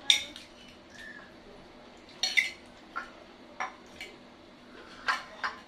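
Plates and a spoon being handled, making about seven short, separate clinks and knocks, the loudest right at the start and two close together near the end.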